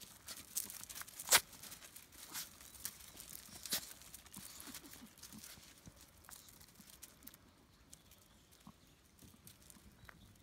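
Small dogs eating dry kibble from stainless steel bowls: scattered crunching and clicking, with two louder sharp clicks about a second and a half in and near four seconds.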